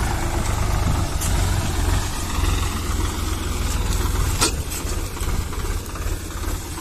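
Tractor diesel engine idling steadily, with one sharp click about four and a half seconds in.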